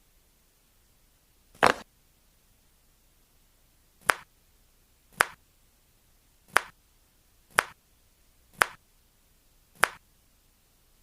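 Joints cracking under a chiropractic adjustment: seven sharp pops, a fuller one about two seconds in, then six more spaced roughly a second apart from about four seconds in.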